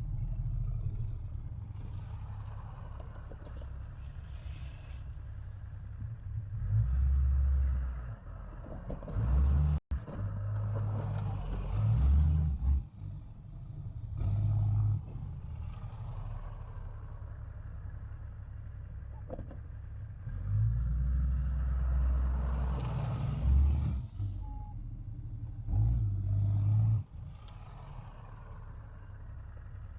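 Dodge Ram 2500 pickup truck engine running and revving up in repeated surges as the truck pushes heavy snow with its plow.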